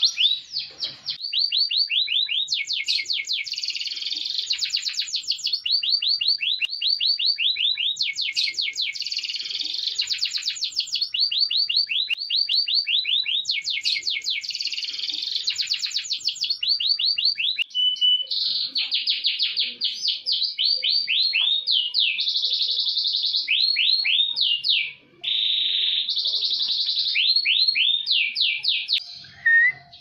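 Male domestic canary singing: a continuous song of fast trills and rolls, each phrase a quick run of repeated notes, with a short pause near the end.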